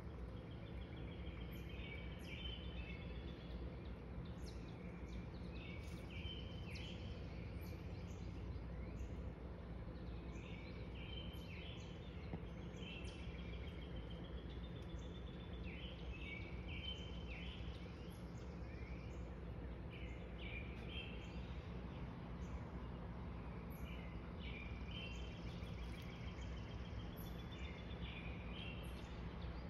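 A songbird singing short, quick phrases every few seconds over a steady low background hum.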